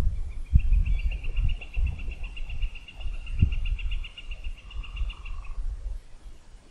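A long, even, high-pitched animal trill that lasts about five seconds and then stops, over a low, uneven rumble.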